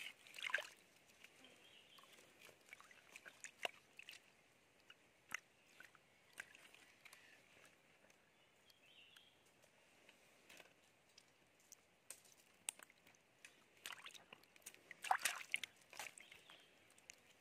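Shallow water in a drying stream pool sloshing and splashing in short, scattered bursts as hands grope through it for stranded loaches, with louder splashes about half a second in and again around fifteen seconds.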